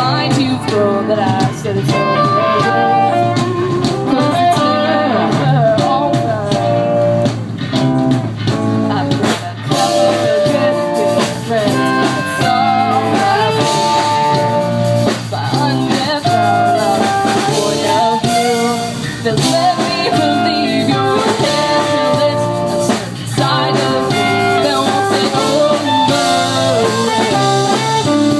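Loud band music with electric guitar and drum kit, with some singing.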